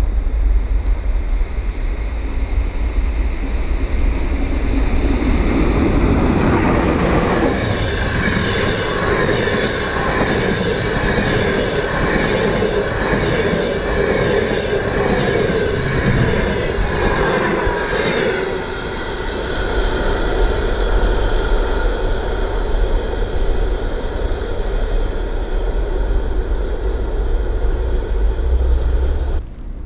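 EP1P electric locomotive hauling a passenger train past at speed, the coaches' wheels rushing and rattling on the rails with steady high ringing tones over the noise. The sound builds about six seconds in and dips briefly around two-thirds through. Low wind rumble on the microphone can be heard at the start and near the end.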